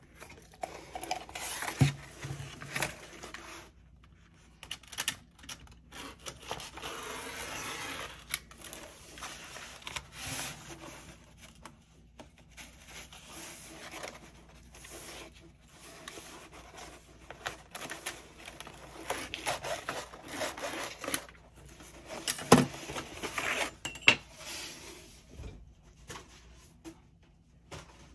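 Stiff paper-backed bookcloth rustling and scraping as it is unrolled, slid and smoothed on a cutting mat, in stretches that stop and start. A couple of sharp knocks from a metal ruler being laid down, the loudest about two-thirds through.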